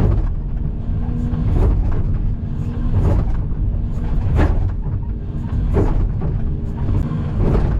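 Excavator's diesel engine running steadily under working load, with hydraulic strain and a short, sharper scrape or knock about every one and a half seconds as the bucket works the soil of the embankment slope.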